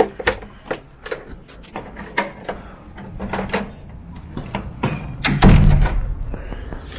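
Irregular sharp clicks and knocks, with a heavier low thump about five and a half seconds in.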